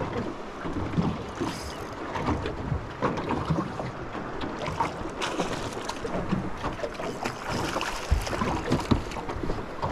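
Water lapping and slapping against the hull of a small aluminium boat, with wind on the microphone and scattered light knocks.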